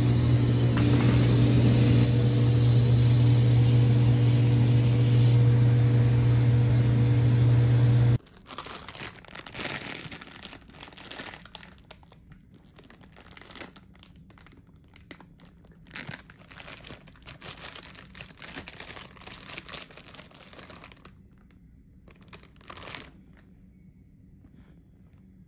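A loud, steady droning hum that cuts off abruptly about eight seconds in, followed by quiet, irregular crinkling and clicking.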